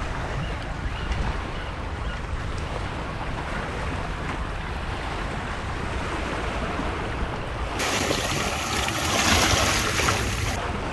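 Wind buffeting the microphone over the wash of waves on the shore, a steady rumbling hiss. About eight seconds in, a louder, brighter hiss swells up for roughly three seconds, then drops back.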